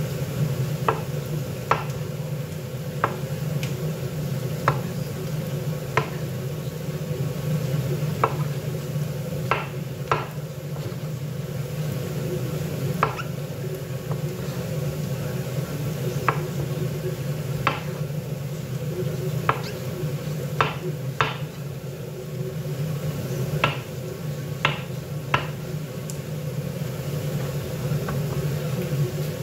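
Chef's knife slicing button mushrooms on a wooden cutting board: sharp, irregular taps of the blade striking the board, about one every second or two, over a steady low hum.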